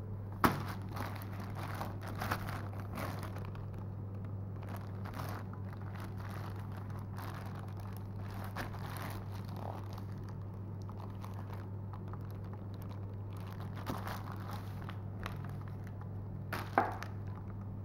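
Rubber inner tube of a handcart tyre handled and turned over on a sheet of plastic bubble wrap: scattered rustling and crinkling of plastic and rubber. There is a sharp click about half a second in and another near the end, over a steady low hum.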